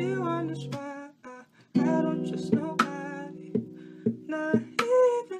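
Background music: a guitar-led song with plucked notes and sharp percussive hits, dropping out briefly about a second and a half in before picking up again.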